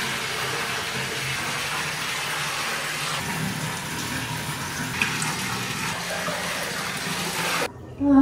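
Water running steadily from a tap into a bathtub, cutting off suddenly near the end.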